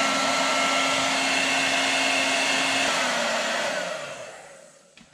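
Handheld hair dryer blowing, a steady hum with a rush of air, warming a bracket's adhesive pads. It is switched off about three seconds in and winds down over the next second or so.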